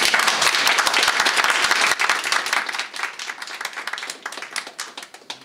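Audience applauding, the clapping thinning out and fading away over the last couple of seconds.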